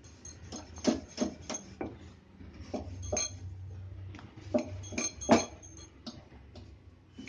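A wooden rolling pin rolling out paratha dough on a marble rolling board. The pin and the stone knock and clack together in a dozen or so irregular sharp clicks, the loudest a little past the middle.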